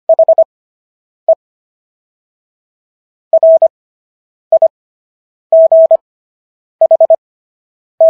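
Morse code sent as a single steady-pitched beep tone, with letters keyed quickly in short and long beeps and long, evenly stretched gaps between them (Farnsworth spacing, 25 WPM characters at 10 WPM overall). The beeps spell out the end of "the" and most of "right", the opening of the Fourth Amendment.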